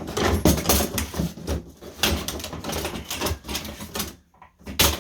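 Tools and flat wood drill bits clattering and knocking as they are rummaged through, in quick irregular bursts with dull thuds, ending in one sharper knock.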